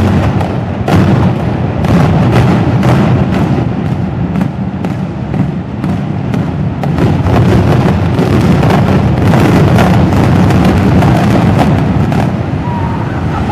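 Explosive demolition of a multi-storey concrete parking garage: a rapid string of loud charges cracking off one after another for the first several seconds, then a continuous rumble as the structure comes down.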